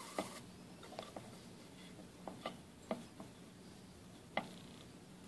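Faint handling noise of nylon paracord being threaded and pulled tight through Solomon bar knots on a bracelet jig: scattered soft rubs and light clicks, the sharpest about four and a half seconds in, over a faint steady hum.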